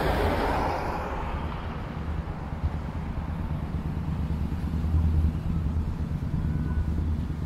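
Street traffic: a passing vehicle's hiss dies away in the first second, leaving a steady low rumble.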